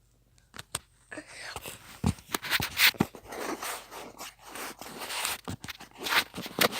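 Handling noise: irregular scrapes, rustles and clicks close to the microphone.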